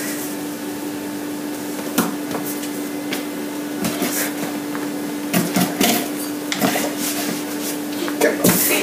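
Desktop printer running with a steady hum, and scattered clicks and paper rustles as a cat paws at a sheet of paper.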